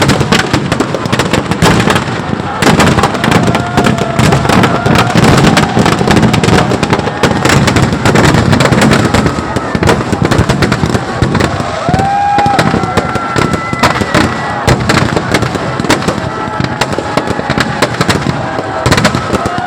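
Firecrackers packed in a burning Ravana effigy going off: a dense, continuous crackle of rapid sharp bangs and pops.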